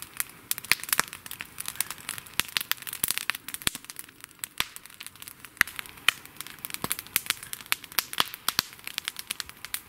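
Campfire of logs and green spruce branches crackling, with many sharp, irregular pops and snaps.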